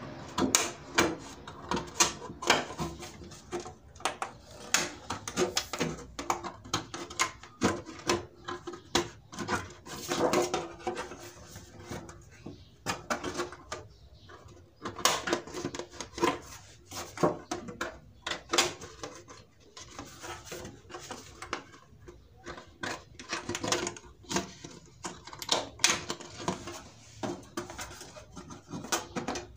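Small scissors snipping through a thin metal plate from an LCD panel: a long run of irregular sharp metallic snips and crunches as a circle is cut out of the sheet.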